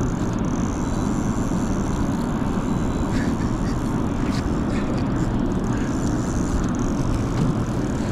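Boat motor running steadily, a low rumble, with a few faint clicks about three to four seconds in.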